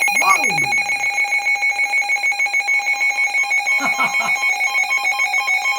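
Electronic alert tone on a radio broadcast of Emergency Alert System warnings: a steady high two-pitch beep pulsing rapidly, about seven times a second. Faint voice fragments show under it near the start and about four seconds in.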